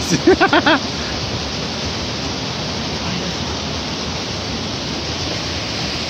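Steady, even rushing of a waterfall, unbroken throughout, with a man's voice briefly in the first second.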